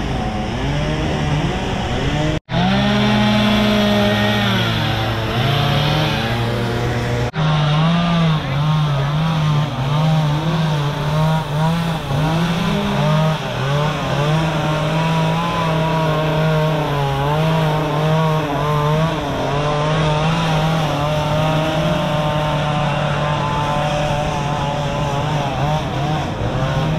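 Several two-stroke chainsaws running at once, their pitch rising and falling as carvers work the throttle while cutting wood. The sound breaks off abruptly for an instant twice, about two and a half and seven seconds in.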